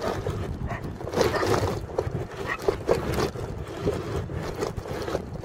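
Bicycle ridden over a rutted sand track, with wind buffeting the microphone as a steady low rumble and irregular short knocks and rattles from the bike jolting over the ruts.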